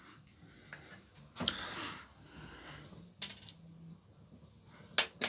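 Plastic parts of a chainsaw being handled during disassembly: a short scraping rustle about a second and a half in, then a sharp click a few seconds later and two more clicks near the end.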